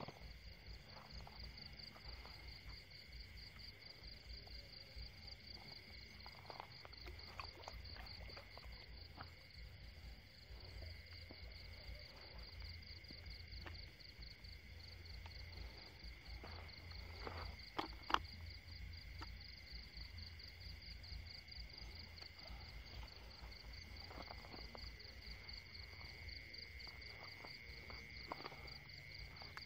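Faint night chorus of insects: a steady, fast-pulsing high trill with a second, lower steady trill beneath it. A couple of short knocks stand out about 18 seconds in.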